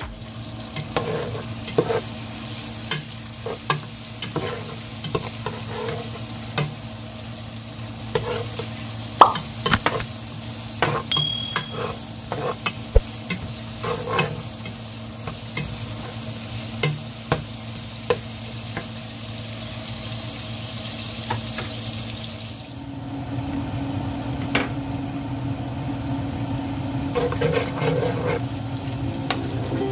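Sliced onions sizzling in hot oil in a nonstick pot, stirred with a metal utensil that clicks and scrapes against the pan. About three quarters of the way through, the sizzle drops and a steady low hum comes forward.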